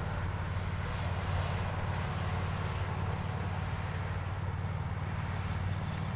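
A steady low engine hum, a rapidly pulsing idle-like drone.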